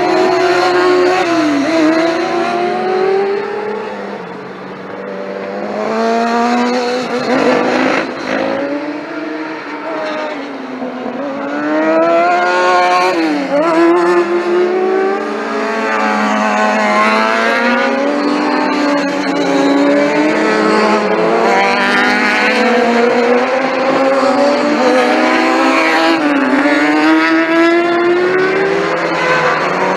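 Racing motorcycle engines accelerating hard as bikes pass, several at once. Each engine's pitch climbs and then drops sharply at every upshift.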